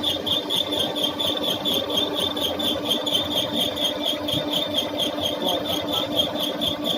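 Line boring machine running steadily on an excavator bucket pivot bore: a constant mechanical hum with a high, regular pulse about three to four times a second.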